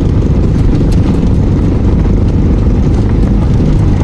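Vehicle driving over a rough, rutted gravel road: a steady loud low rumble of tyres and suspension, with scattered small rattles and knocks.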